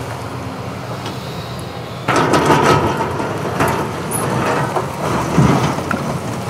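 Cat 329E excavator's diesel engine running under load as its bucket digs into concrete rubble. From about two seconds in, broken concrete clatters and grinds against the steel bucket, with sharp knocks scattered through the rest.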